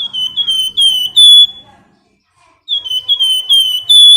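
Flamboyan bird singing loud, clear whistled notes in two phrases of about five notes each, every note sliding slightly down in pitch and the last held briefly; a short pause separates the phrases.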